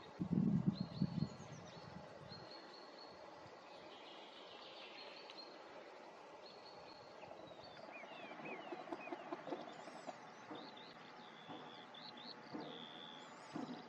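Small forest birds calling with short, high, thin notes, including a quick run of falling notes about two-thirds of the way through. A burst of low thumps in the first second is the loudest thing.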